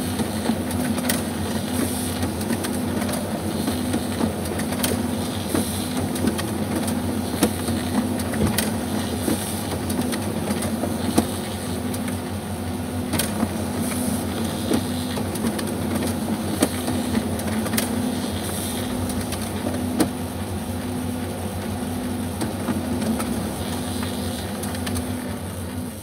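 Kyocera Ecosys laser printer running a double-sided print job: a steady whirr of motors and feed rollers with a low hum pulsing about once a second and scattered clicks as sheets are fed, reversed through the duplexer and ejected.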